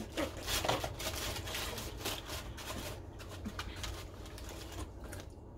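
Eating sounds at a table: crisp crunching and rustling with small clicks, busiest in the first three seconds and quieter after, from people eating chicken wings and fries out of paper-lined trays with plastic forks.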